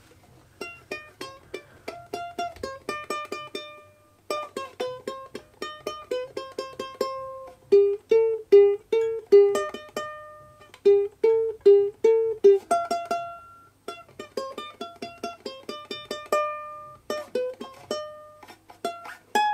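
A 3D-printed ukulele being picked by hand, playing a melody of single plucked notes with two short pauses along the way.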